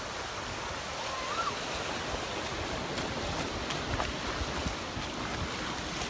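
Gulf of Mexico surf washing onto the beach as a steady hiss, with wind buffeting the microphone.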